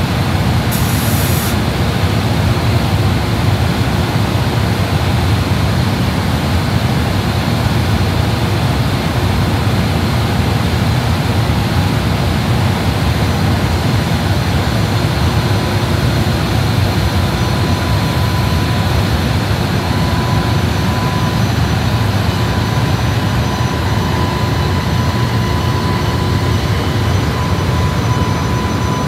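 EH500 electric locomotive's cooling blowers running with a loud, steady rush as the locomotive starts to pull away. A steady high whine joins in about two-thirds of the way through.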